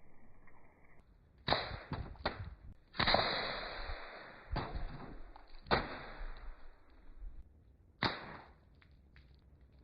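A homemade clothespin pocket pistol firing in a series of sharp snaps, about seven in all, each followed by a fading rush.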